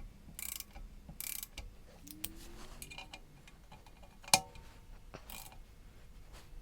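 Hand tools at work on a motorcycle exhaust fitting: short bursts of ratchet-like clicking, with one sharp metal clink about four seconds in.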